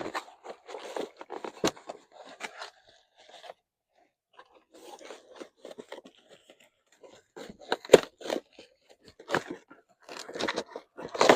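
A cardboard box and its packing being torn open and handled to unpack a new blower motor: irregular crunching and scraping with sharp knocks, the loudest about eight seconds in and another near the end.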